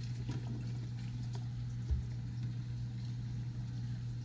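Steady low hum of running aquarium pumps, with a single dull thump about two seconds in.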